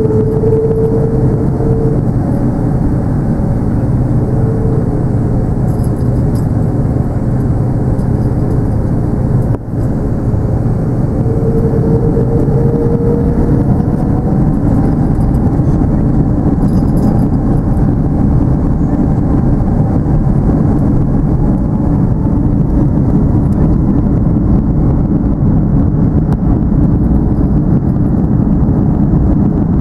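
Airbus A330-200's Rolls-Royce Trent 700 jet engines running loud and steady at takeoff power, heard inside the cabin, with a faint whine that rises in pitch partway through.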